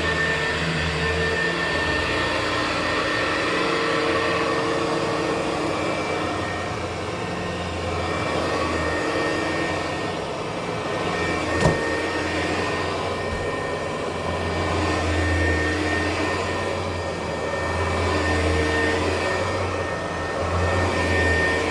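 Hoover U4007 upright vacuum cleaner running on carpet with its motor and 4-row brushroll. Its low hum swells and fades every few seconds as it is pushed back and forth. A single sharp knock comes about halfway through.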